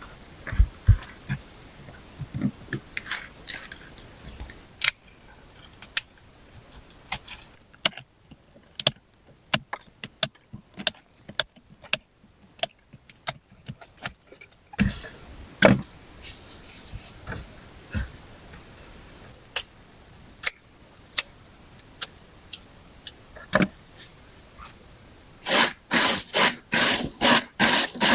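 Hand tool work: scattered knocks, clicks and scrapes, then near the end a fast, even run of strokes, about four a second.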